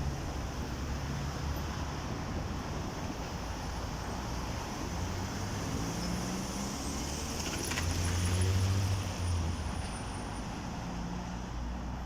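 Passenger train rolling past, a steady rumble of wheels on rails with a low hum underneath.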